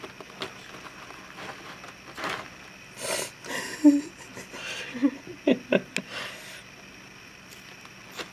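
Russian tortoise biting and chewing a piece of raw carrot: a scattered run of crisp crunches and sharp clicks, thickest in the middle of the stretch, with a few quick clicks in a row a little after the middle.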